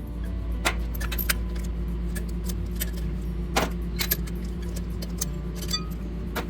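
Metal tools and engine parts clinking and tapping against each other, a dozen or so sharp clinks, one ringing briefly near the end, over a steady low hum.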